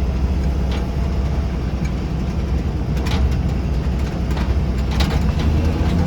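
1983 Jeep CJ5's 4.2-litre straight-six running steadily at low revs as the Jeep crawls in four-wheel-drive low range, with a few short sharp knocks.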